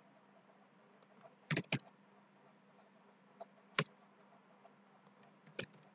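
A few sharp, isolated clicks of computer keys and mouse buttons: two close together about one and a half seconds in, one near four seconds, and one near the end, over a faint steady hum.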